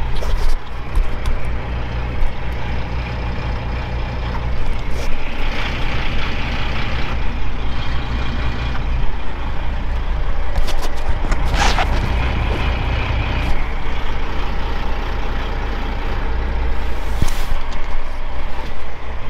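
Straight-piped Caterpillar 3406 diesel of a Kenworth W900 idling steadily, heard from inside the cab. There is a few seconds of air hiss about five seconds in and a short sharp hiss near the middle.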